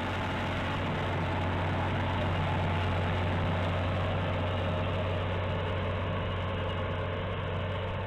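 Six-cylinder diesel engine of a UTB A1800 articulated tractor running steadily under load while pulling a plough, with a low, steady hum.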